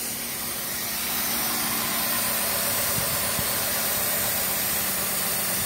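Pickup truck engine idling steadily, heard as an even running hiss under the open hood.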